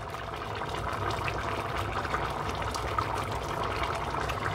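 Rice bubbling at a boil in meat stock in a steel pot, the liquid nearly boiled down into the rice. A few light clicks and splashes as sliced carrots and green bell pepper are tipped in from a dish.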